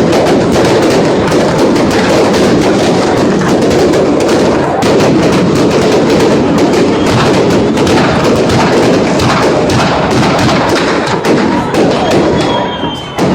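A fireworks display: rapid, continuous crackling and popping over a loud, steady din from the gathered crowd.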